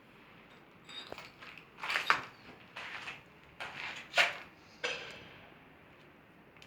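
A string of irregular knocks and clatters of hard objects, the loudest about two seconds and four seconds in.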